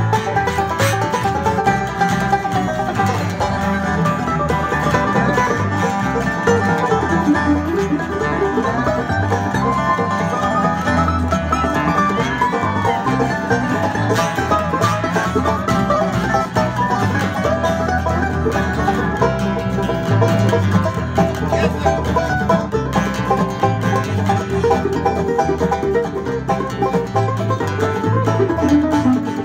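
Live acoustic string band playing an instrumental bluegrass passage without vocals: several acoustic guitars strumming together with a picked string lead over them, at a steady tempo.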